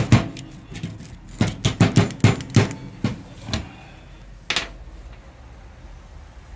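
Irregular sharp metallic knocks and clicks of hand tools being handled under a car: about a dozen in the first few seconds and one more a little after the middle, then a quieter stretch.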